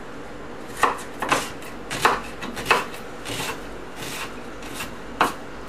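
Chef's knife rough-chopping a white onion on a wooden cutting board: about seven separate knocks of the blade on the board, roughly one every two-thirds of a second, the last after a short pause.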